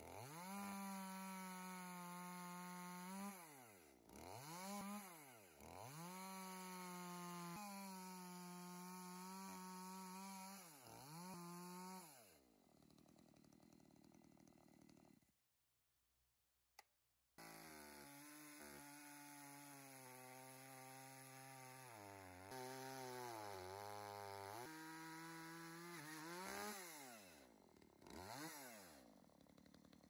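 Makita chainsaw cutting into a log, its motor speeding up and slowing down again and again, several times winding right down before picking up again. About halfway it drops away to near silence with a single click, then starts up abruptly and revs up and down again.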